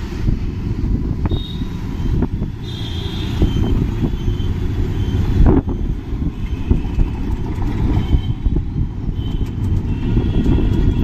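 Street traffic under a heavy, fluttering low rumble of wind buffeting the microphone, with a few short high tones coming and going.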